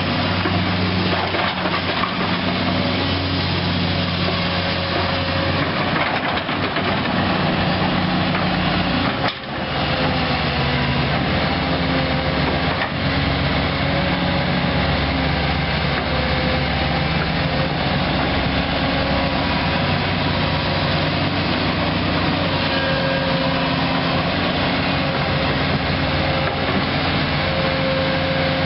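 Isuzu six-cylinder diesel engine of a Link-Belt 3400 Quantum excavator running steadily, its note shifting as the load changes, with a short dropout about nine seconds in.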